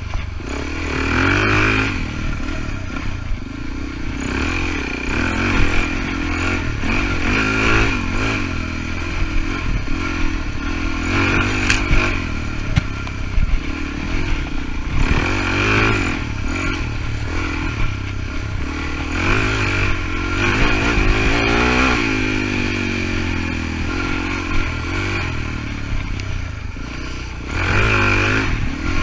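Suzuki DR-Z400E single-cylinder four-stroke dirt bike engine under way, its pitch rising and falling again and again as the throttle is worked, with clatter and a few sharp knocks as the bike rides over rough ground.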